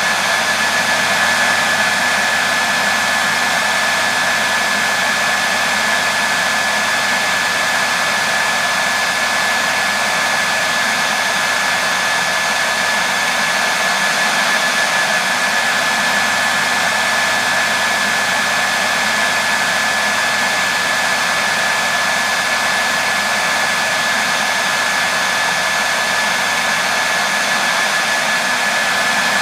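Hair dryer running steadily: a continuous airy rush with a constant high whine from its motor, played as white noise to settle a baby.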